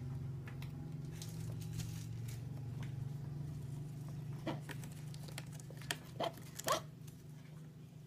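Short scratchy, crinkling sounds of a hamster scrabbling about on the plastic and bubble wrap of its enclosure. The loudest three come close together about two seconds before the end, over a steady low hum.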